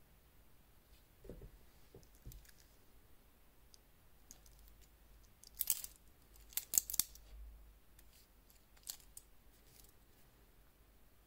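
Stainless steel watch bracelet and clasp of a Seiko solar chronograph handled on the wrist: a few soft knocks, then a quick cluster of sharp metallic clicks around the middle and one more click later on.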